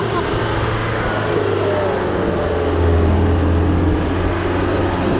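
Mahindra Thar's diesel engine running as it drives over sand, a steady low drone that grows louder for about a second around the middle.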